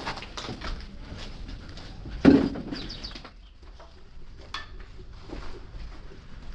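A player's footsteps and gear rustling as he moves forward quickly, with one loud thump about two seconds in.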